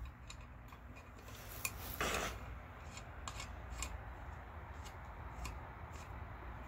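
Faint clicks and rubbing of small parts of a phone and microphone holder being handled and screwed by hand, with a brief scrape about two seconds in.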